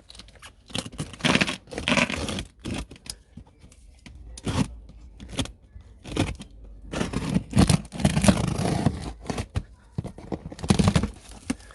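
Cardboard box being opened by hand: irregular scraping and rustling of cardboard and the wrapping packed inside, in uneven clusters.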